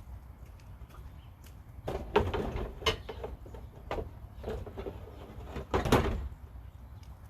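Two bouts of clattering knocks, the first about two seconds in and the second around five to six seconds in.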